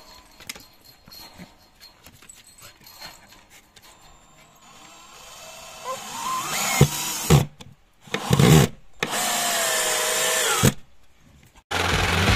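18-volt Vikhr DA-18-35L cordless drill driver driving a long wood screw into a deck board. After a few seconds of faint clicks, the motor runs in three bursts, its whine rising and falling in pitch as the screw goes in. Music starts near the end.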